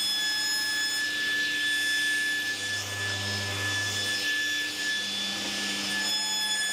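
Sliding table saw running with a steady whine and cutting through a sheet of MDF board. The hiss of the cut rises about a second in and eases off near the end.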